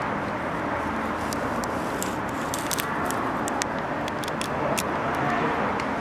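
Steady hum of city traffic, with scattered faint clicks.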